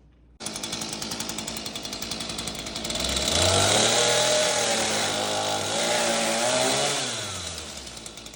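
Chainsaw running at low speed with a fast, even rattle, then throttled up about three seconds in. Its pitch sags and recovers as it cuts a zero-clearance slot into the jig, and it falls off near the end.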